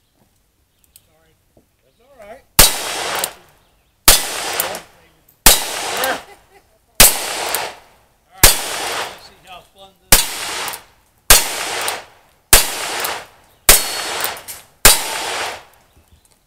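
Single-action revolver fired ten times at a steady pace, roughly one shot every 1.2 to 1.5 seconds. Each loud shot trails off briefly.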